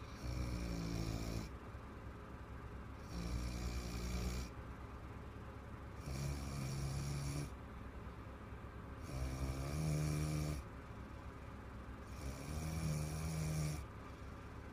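A woman snoring in a steady rhythm: five low, buzzing snores, each about a second and a half long, coming roughly every three seconds with quieter breathing between.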